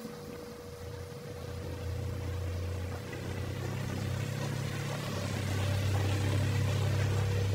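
A steady low mechanical hum, like a motor running, growing louder over the second half.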